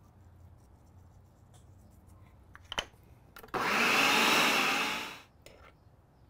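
Food processor run in one short burst of about two seconds, the motor spinning up and winding down as it blends avocado salsa; a click comes a little before it.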